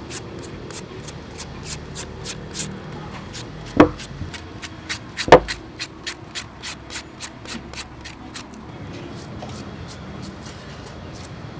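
Hand-held julienne shredder scraping strips off a peeled green mango, in quick even strokes about three or four a second that grow fainter near the end. Two sharp knocks, the loudest sounds, come about four and five and a half seconds in.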